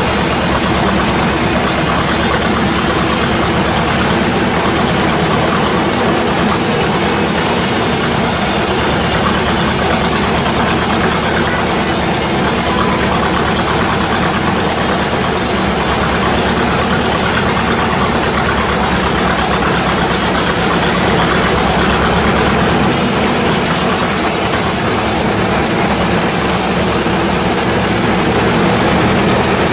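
Sawmill running steadily, its saw cutting through a teak log.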